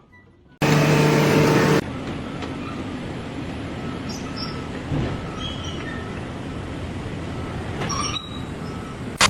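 A loud horn-like blast lasting about a second, then steady rolling machine noise with a few brief high squeals.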